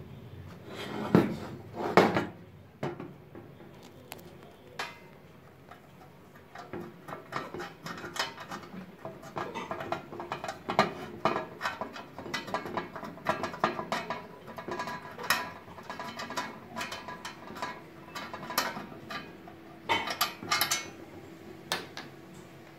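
Metal clicks and clinks of screws and a steel circuit-breaker enclosure being handled, with fast runs of small ticks as a cover screw is worked. Two louder knocks of the box come about one and two seconds in.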